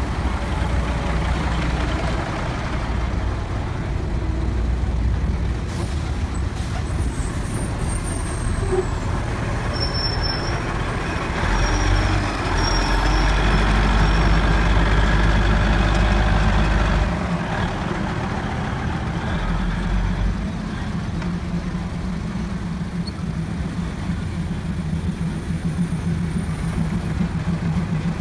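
Diesel passenger train rolling slowly past at close range, its engines running with a steady low drone that grows louder for several seconds about midway through.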